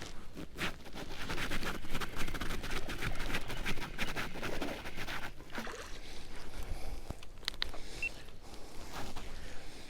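Water sloshing and splashing around a fishing kayak, with scattered knocks of handling against the hull.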